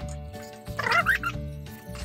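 Background music with a steady beat, and one short high-pitched cry, like a meow or a child's squeal, about a second in.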